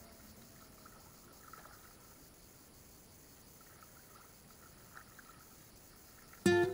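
Faint splashing of a dog wading through shallow water, over a low hiss. Near the end, acoustic guitar strumming comes in loudly.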